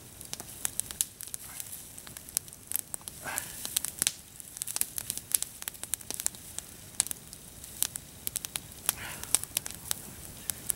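Wood campfire crackling, with rapid, irregular sharp pops.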